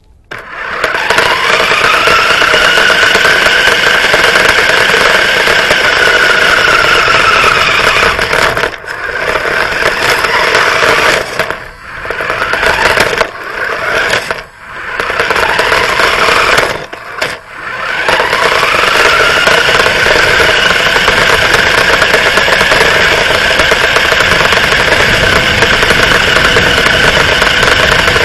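Radio-controlled car's motor and drivetrain heard from on board. The whine rises in pitch as the car accelerates away, then holds steady at speed. Through the middle it drops away and comes back several times as the throttle is eased and reapplied, then runs steadily again.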